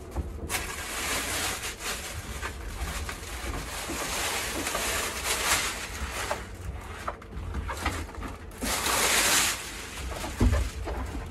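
Foil-faced sound-deadening mat being rubbed down by hand onto a van's steel side panel: repeated scratchy, crinkling strokes of the foil surface, with a single knock near the end.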